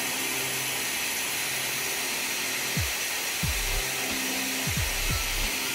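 Handheld hair dryer blowing steadily, warming a smartwatch display to soften its adhesive. Background music plays over it, with a beat of deep kicks coming in about three seconds in.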